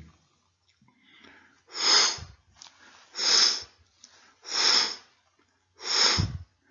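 A man imitating a crescendo (ejection) heart murmur with his mouth: four breathy hissing whooshes about every 1.4 s, each going from less to more. This is the murmur of aortic or pulmonary stenosis. Two of the whooshes end in a short low thud.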